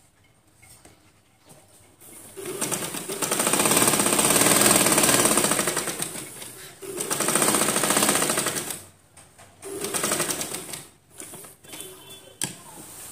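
Sewing machine stitching a seam through a suit front and its lining along the neckline. It runs in several goes after a quiet start: a long run of rapid, even needle strokes, then shorter runs with pauses between, each one speeding up and slowing down.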